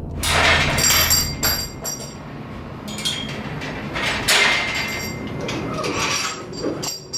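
Sharp metallic clanks and clinks, several in the first two seconds and a loud one about four seconds in, each with a brief high ring.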